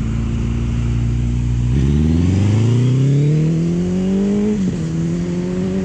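Motorcycle engine running steadily, then revving up with a rising pitch from about two seconds in. The pitch drops sharply near four and a half seconds as it shifts up a gear, then climbs slowly again.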